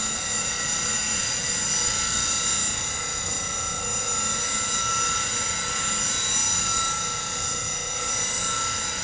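Bench grinder with an 80-grit CBN wheel running, the wing of a high-speed-steel bowl gouge held freehand against it to grind away bulk metal: a steady, high whine with a grinding hiss.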